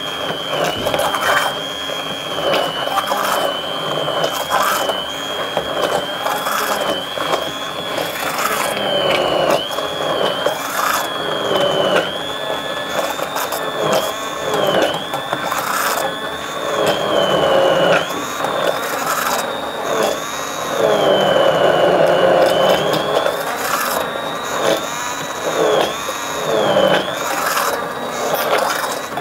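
Hand-held immersion blender running in a stainless steel saucepan, puréeing cooked onions and cherry tomatoes into a tomato sauce. Its high motor whine dips and recovers over and over as the blades bog down in the vegetables, with frequent knocking and rattling.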